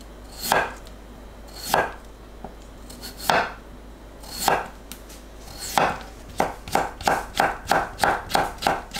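Chef's knife cutting cucumber on a wooden cutting board: five slow, separate slicing cuts about a second apart, then a quick run of chops about three a second as the stacked slices are cut into thin strips.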